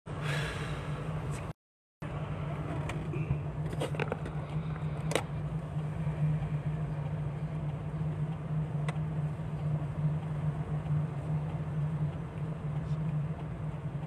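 Car cabin noise while driving: a steady low engine and road hum heard from inside the car, with a few faint clicks. The sound cuts out for about half a second near the start.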